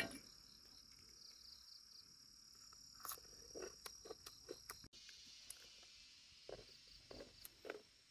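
Near silence: a faint, steady high-pitched insect drone, with a few soft scattered taps. The drone changes abruptly about five seconds in.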